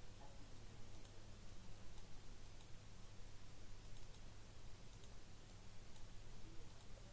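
Faint computer mouse clicks, scattered irregularly, about a dozen, over a steady low hum and hiss.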